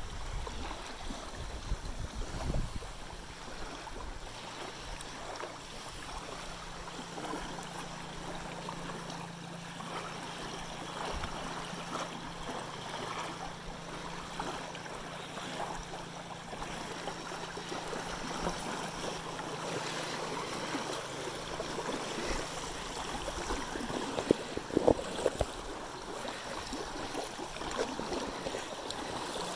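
Small waves lapping on a sandy shoreline, with a steady hiss of water and light wind. A faint steady low hum runs through the middle, and a few sharp knocks come near the end.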